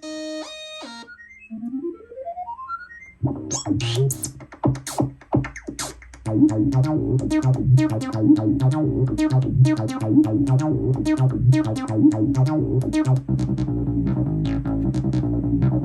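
Synthesizer holding a chord that stops about a second in, then a quick rising run of notes, then a fast repeating sequenced pattern over a deep bass line with short clicky hits, getting fuller about six seconds in.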